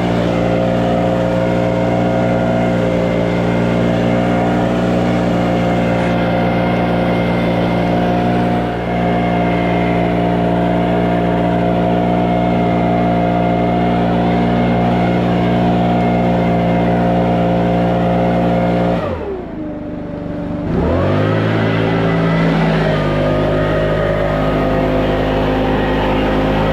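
Small engine running steadily at high speed. About nineteen seconds in its pitch drops sharply and it nearly dies, then it picks back up and runs steadily again.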